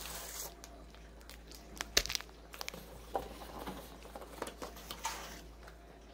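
A cardboard diamond painting kit box being opened and its packaging handled: rustling and crinkling, with scattered light clicks and one sharp snap about two seconds in, the loudest sound.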